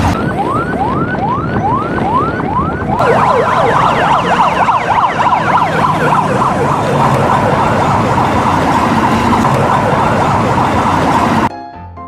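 Electronic emergency siren wailing in quick rising sweeps about twice a second. About three seconds in it changes to a denser pattern of sweeps over a steady tone, like several sirens at once. It cuts off suddenly near the end, where piano music begins.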